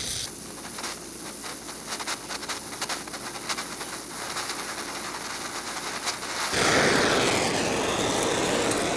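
Oxy-acetylene torch flame hissing while it welds a steel plate with filler rod, with a fine crackle of sparks from the molten puddle. About six and a half seconds in, the crackle stops and the torch's hiss grows louder and fuller as the flame is lifted off the work.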